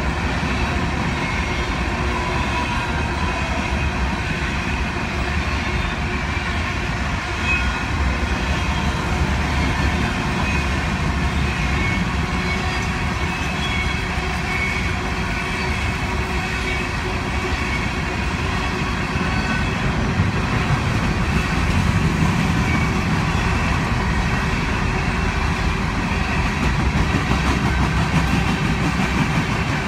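Empty open-top coal cars of a freight train rolling past, a steady noise of wheels on the rails.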